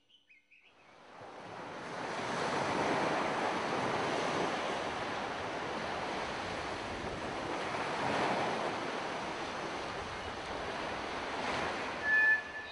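Ocean surf: waves washing in on a sandy beach, a steady rushing wash that fades in about a second in and swells twice.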